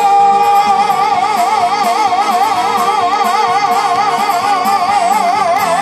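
A woman singing one long held note into a microphone, steady at first and then with a wide, even vibrato, over a backing music track.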